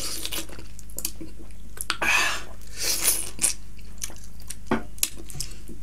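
Close-miked mouth sounds of eating rice and chicken curry by hand: wet chewing and small clicks, with a few louder bursts about two and three seconds in.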